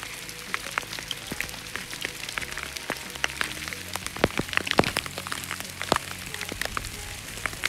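Rain and small hail hitting close to the microphone in many sharp, irregular ticks, heaviest about four to five seconds in, over soft background music with held bass notes.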